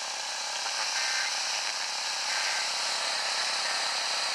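Radio receiver static: a steady hiss of a weak, breaking-up broadcast, with a couple of faint short tones coming through. An Emergency Alert System relay is coming in glitchy, blending in with an adjacent FM station (107.7).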